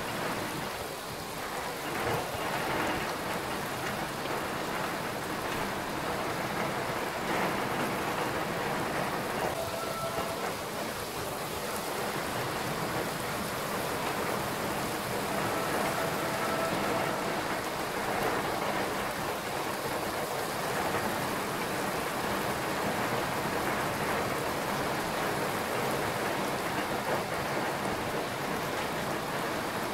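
Heavy wind-driven rain from a microburst thunderstorm, a steady hiss of downpour on the roofs.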